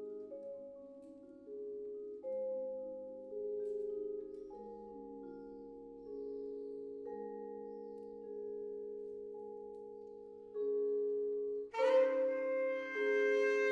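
Vibraphone playing slow chords, each struck and left to ring out, about half a dozen in all. About twelve seconds in a saxophone comes in over it on a long held note.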